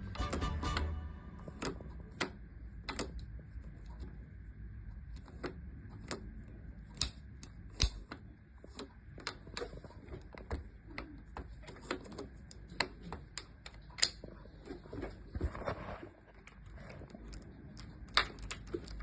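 Irregular metallic clicks and taps of a door lock and its keys and hand tools being worked during lock fitting, a few sharp clicks a second with short pauses between.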